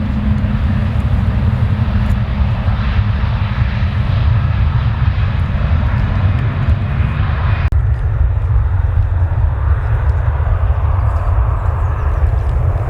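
Airliner jet engines rumbling steadily, deep and noisy. About two-thirds of the way through the higher part of the sound drops away abruptly, leaving mostly the low rumble.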